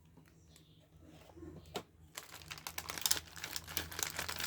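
Packaging being handled and crinkled. For about two seconds there are only a few light clicks, then a busy run of crinkling and small clicks builds up.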